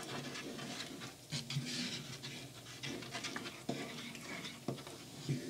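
Wooden spatula stirring thick coconut-milk curry gravy in a pan: soft, uneven wet swishing strokes.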